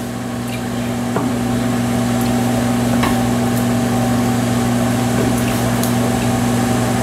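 A kitchen appliance hums steadily, getting a little louder over the first couple of seconds, with a few faint clicks.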